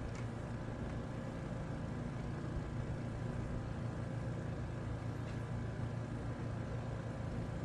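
A steady, low mechanical hum with a few faint steady tones over it, like machinery or an engine running.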